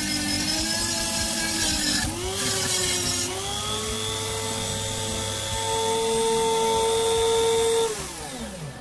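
Black+Decker rotary tool with a sanding drum on its flexible shaft, sanding wood: a steady whine whose pitch sags and wavers under the load, with a scratchy sanding noise. After about three seconds the drum comes off the wood and the whine rises to a steadier, higher pitch as it runs free. Near the end the tool is switched off and the whine falls in pitch as it spins down.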